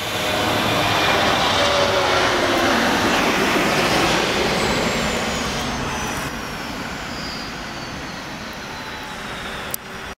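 Airbus A380 jet engines at takeoff power as the airliner lifts off and climbs out: loud, steady jet noise that eases in the second half, with a faint whine falling in pitch as it passes. A single click comes near the end.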